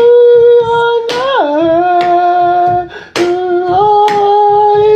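A voice singing long held notes: a high note, a slide down to a lower one, a short break about three seconds in, then a slightly higher held note.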